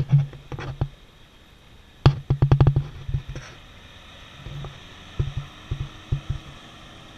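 Three clusters of loud, sharp low thumps in quick irregular succession, one right at the start, a denser run about two seconds in, and a sparser one in the second half. Under them, a faint steady engine hum from the 4x4 on the dirt track comes in during the second half.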